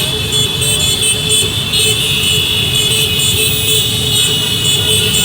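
Road vehicles in a convoy running, with a steady high-pitched tone sounding continuously over the engine rumble.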